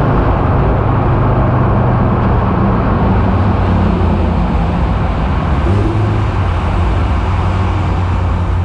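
Donkervoort D8 GTO-40's turbocharged five-cylinder engine running loudly under way through a road tunnel, with tyre and road noise. Its note steps down a little about halfway through and then holds steady.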